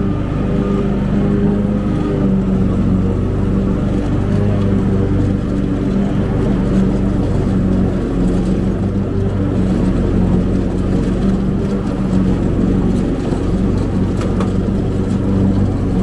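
Cub Cadet zero-turn riding mower's engine running steadily while mowing, a constant loud drone.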